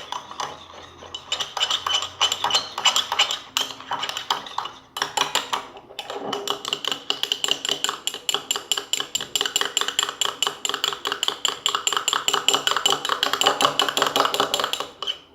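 A spoon stirring a runny slime mixture fast, clinking again and again against the sides of its container, several strokes a second, with a short break about five seconds in.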